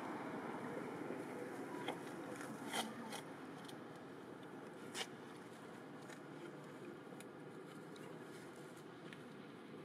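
Steady outdoor background noise, with a handful of short, sharp clicks and crackles between about two and five seconds in.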